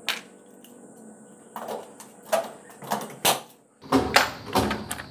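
A series of irregular knocks and clunks from hand tools and building materials being handled during construction work.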